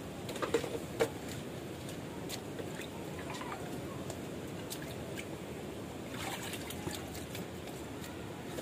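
Water sloshing and trickling in a plastic basin as plastic bottles are dipped and rinsed to wash off sand, with a few light knocks in the first second.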